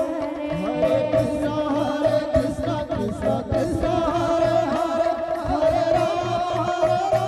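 Live devotional kirtan singing through microphones, with instrumental accompaniment keeping a steady beat.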